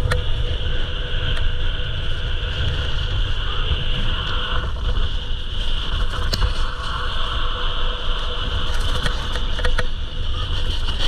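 Skiboards sliding and scraping over snow at speed, with wind rushing and buffeting the microphone as the rumble underneath; the scraping swells and eases with the turns and is broken by a few sharp clicks.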